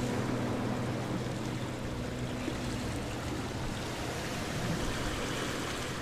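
Steady tyre and road hiss of a car driving on wet asphalt, heard from inside the cabin.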